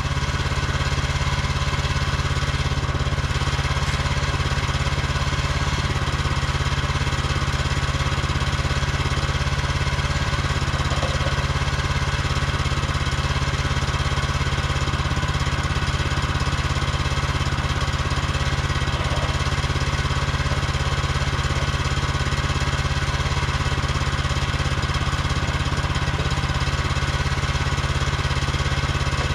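Small gas engine of a Woodland Mills HM130MAX portable sawmill idling steadily while it warms up after a cold, choked start.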